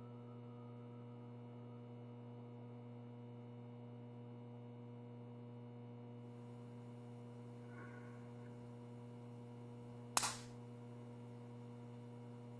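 A steady low hum, with one sharp bang about ten seconds in.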